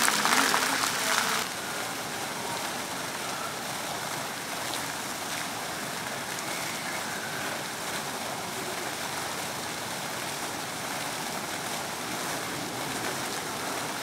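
Fountain jets splashing down into a shallow pool: a louder, busier splashing for about the first second, then a steady, softer rush of falling water from a row of small jets and a central plume.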